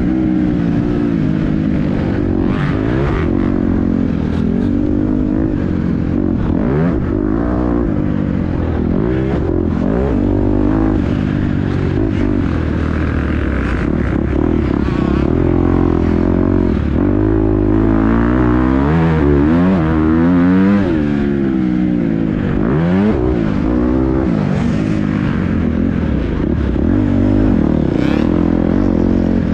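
Dirt bike engine being ridden hard off-road, its pitch rising and falling over and over as the throttle is opened and closed.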